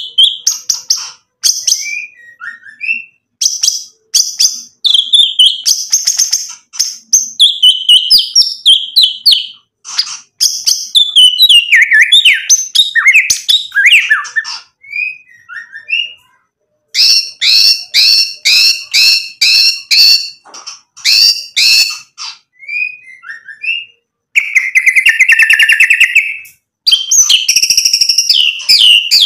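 White-rumped shama (murai batu) singing in full voice, a loud, varied song of whistled glides and phrases full of its mimicked 'isian' notes. Partway through comes a quick series of repeated notes, and near the end a buzzy trill.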